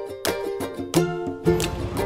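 Background music: a light plucked-string tune with notes about four a second. A low rumble of background noise comes in near the end.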